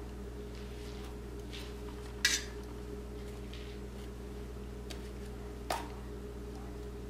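A metal spatula clinks twice against a stainless steel bowl, a few seconds apart, while scooping frosting. A steady low hum runs underneath.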